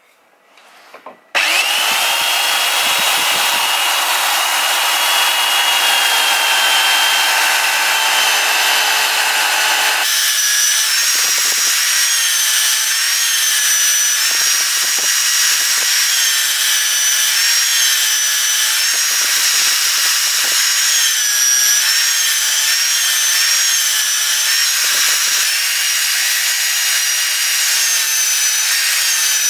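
Bosch PBS 60 belt sander starting up about a second in and running steadily with a whine. From about ten seconds in, the hatchet's steel edge is ground against the sanding belt to sharpen it, and the motor's pitch wavers as the blade is pressed on.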